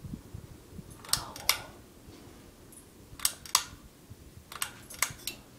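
Sharp clicks in three close pairs from the pull-chain speed switch of a Hunter ceiling fan, being worked through its speed settings, over a faint steady hum from the fan.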